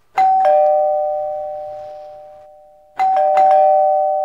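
Two-tone chime doorbell ringing ding-dong, a higher note followed by a lower one, both left to ring out slowly. About three seconds in it is rung again, with several quick strikes in a row.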